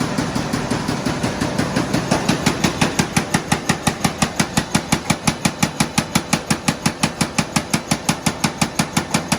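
CHM-1400 paper roll cutting machine running: a steady mechanical hum, then from about two seconds in a fast, even clicking at roughly five or six a second.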